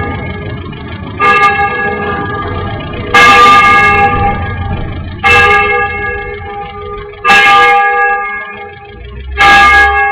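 A church bell tolling, five strokes about two seconds apart, each ringing on until the next. Under it runs a low rumble of wind and road noise from the moving camera.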